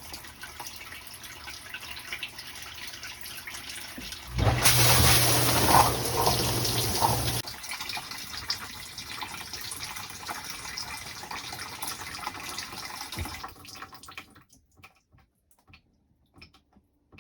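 Whirlpool dishwasher's water running and splashing into the tub during a test cycle, with a freshly replaced water inlet valve. It gets much louder with a low hum for about three seconds from roughly four and a half seconds in, then eases off and dies away to near silence near the end.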